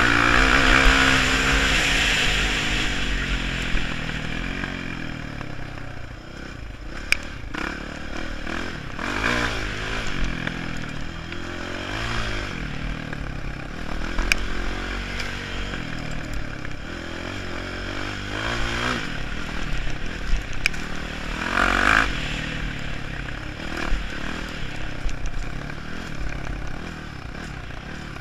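Dirt bike engine revving up and down again and again, accelerating and backing off along a rough dirt trail, loudest in the first couple of seconds. Clattering and scraping from the bike on the rough ground, with a few sharp knocks.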